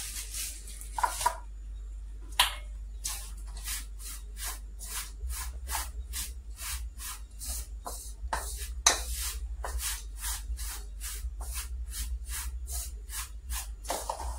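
Wooden spoon stirring a dry flour mix in an aluminium pan: a steady run of short scraping, swishing strokes, about two or three a second.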